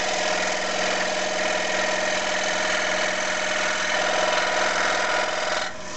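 Scroll saw running steadily with its blade cutting through thin wood, a buzzing hum with a hissing rasp, cutting off abruptly near the end.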